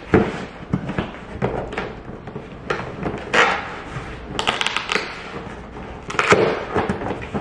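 Cardboard shipping box being pried open by hand: flaps scraping, rustling and knocking in several bursts, the loudest about halfway through and again near the end.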